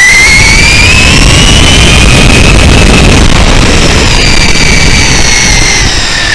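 Hobbywing 2200kv brushless motor and spur-gear drivetrain of a 1/10 Traxxas E-Revo RC truck whining under throttle. The pitch climbs over the first two seconds, then eases and drifts lower in the second half, over a loud low rumble of tyres on asphalt.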